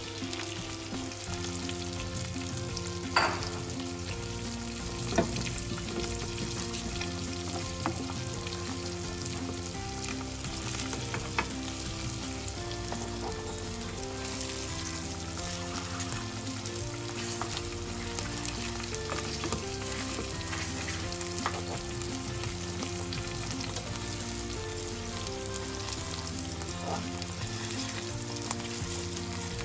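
Sujuk slices and eggs sizzling steadily in oil in a nonstick frying pan. A spatula clicks against the pan a few times, most sharply about 3 and 5 seconds in, as it is pushed through the setting egg whites.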